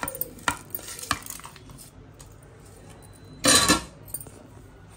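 Dry roasted spices, lentils and dried red chillies being scraped off a ceramic plate and tipped into a steel mixer-grinder jar. A few light clicks come first, then a short, loud clatter a little past the middle.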